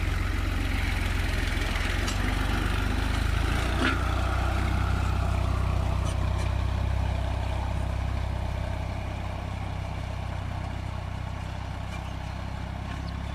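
Ghazi tractor's diesel engine running steadily while it pulls a disc harrow through the field. It grows fainter after about eight seconds as the tractor moves away, and there is a single knock about four seconds in.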